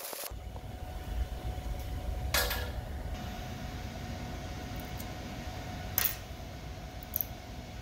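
Spent 7018 stick-electrode stubs clicking and scraping against a steel welding-table top four times, over a steady low mechanical hum.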